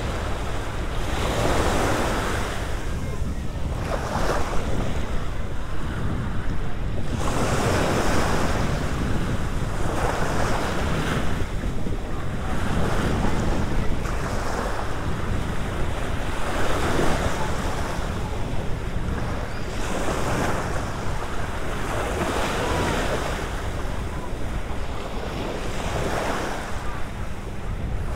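Small waves breaking in the shallows and washing up a sandy beach, a swell of rushing water every two to three seconds. Wind rumbles on the microphone underneath.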